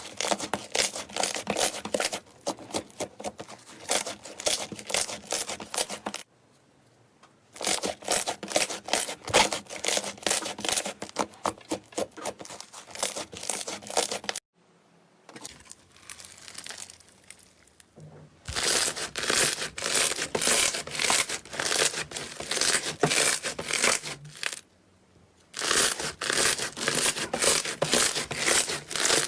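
Slime being squeezed and pressed by hand, making rapid sticky clicking and popping sounds, in several stretches broken by short pauses.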